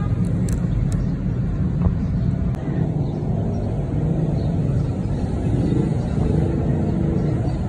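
Steady low rumble of a running engine, with a few light clicks in the first second.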